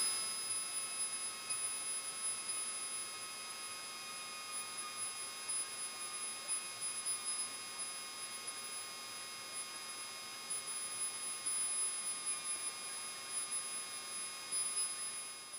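Faint steady electrical hum and whine, several fixed high tones over a low hiss, as picked up on a light aircraft's headset intercom feed while the plane taxis at idle.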